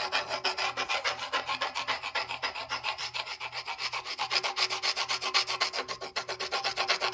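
Tip of a paintbrush scrubbed hard back and forth over a chalk-painted, sealed marble tabletop, in quick even strokes about five or six a second. This is a scratch test of the painted finish.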